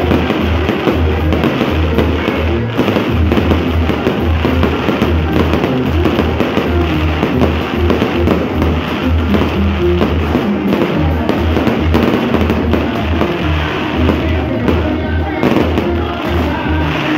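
Aerial fireworks going off without pause, a dense run of crackling, popping and bangs from sparkling shell bursts, with music playing underneath.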